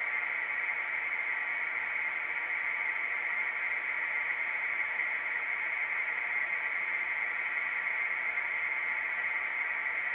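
Steady static hiss, even and unchanging.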